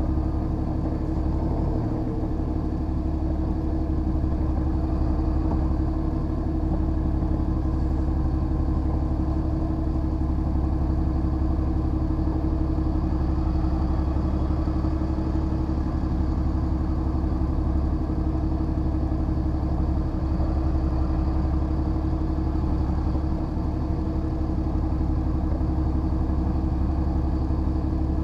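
Lorry's diesel engine running steadily at idle, a constant low hum.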